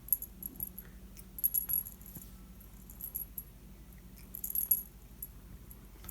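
Light metallic jingling from a cat toy being played with, in several short bursts a second or more apart.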